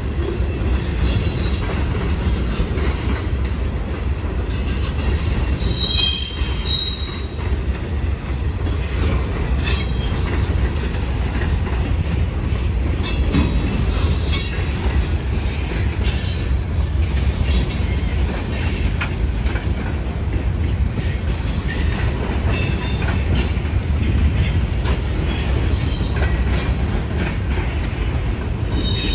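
Freight cars rolling past at steady speed: a continuous low rumble of steel wheels on rail, with scattered clicks and clanks. Brief high-pitched wheel squeals come and go a few times as the wheels work through the curve.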